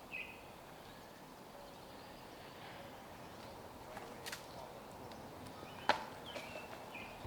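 Quiet outdoor ambience with short, high bird chirps that step down in pitch, heard near the start and again near the end. A single sharp knock just before six seconds in is the loudest sound.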